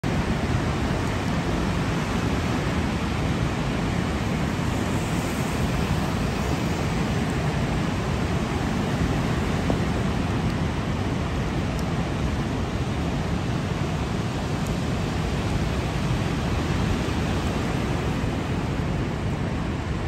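Steady, unbroken roar of rough storm surf in heavy rain, with no single wave crash standing out.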